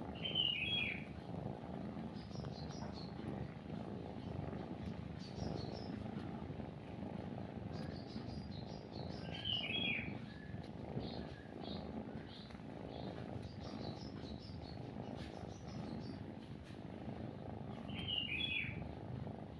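A cat purring steadily and low throughout. Over it a bird calls the same short phrase three times, about nine seconds apart, with fainter high chirps in between.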